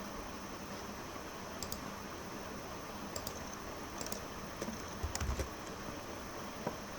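Scattered keystrokes on a computer keyboard: a handful of separate taps starting a second or two in, over a steady hiss, with a dull low bump about five seconds in.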